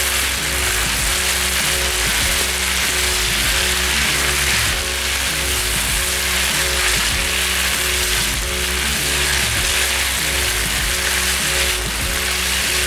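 Chopped chicken breast sizzling steadily in olive oil in a frying pan as it sears, over background music with a repeating beat.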